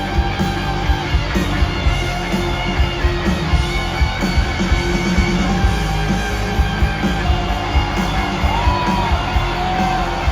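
Rock music: electric guitars and drums with a steady beat, and a gliding pitched line, sung or bent on guitar, near the end.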